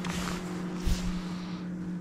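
Boat's electric trolling motor giving a steady hum under wind noise on the microphone, with a short thump about a second in.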